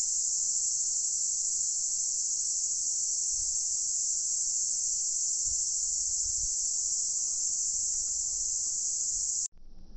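Insect chorus: a steady, unbroken high-pitched drone that cuts off suddenly near the end.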